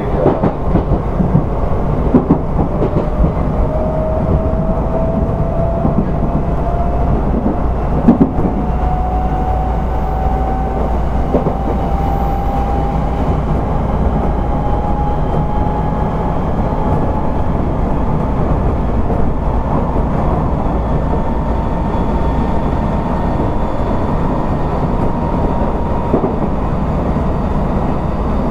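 Running sound of an Odakyu 1000 series electric train, car DeHa 1311, heard from inside the car: a steady rumble of wheels on rail with a thin motor whine that rises slowly in pitch as the train picks up speed. A few short knocks from the track, the loudest about eight seconds in.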